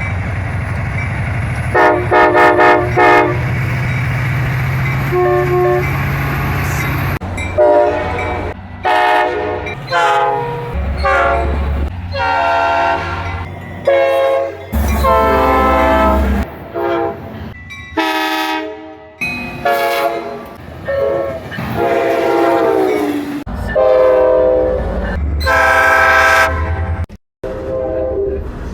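A rapid run of short train horn blasts, each about a second long and cut off abruptly into the next, from many different locomotive air horns sounding chords of several tones. Some blasts fall in pitch. Low locomotive engine rumble and rail noise run under the horns in the first few seconds.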